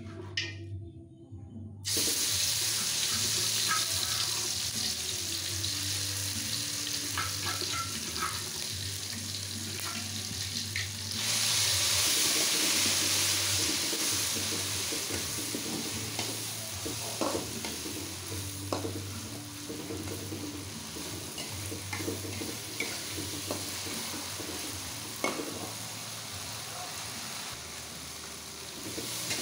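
Ground red chili paste dropped into hot oil in a wok, starting to sizzle suddenly about two seconds in and frying with a steady hiss, which swells louder around eleven seconds. A metal spatula stirs it, with occasional scrapes and clicks against the wok.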